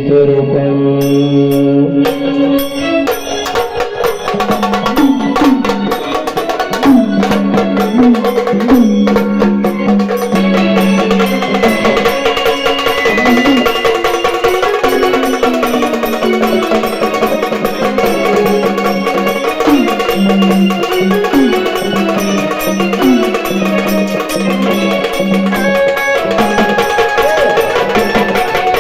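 Instrumental introduction of a Marathi gondhal devotional song: drums and clacking wood-block-like percussion under a sustained melodic line with sliding notes. It opens with held notes alone for about two seconds before the percussion comes in.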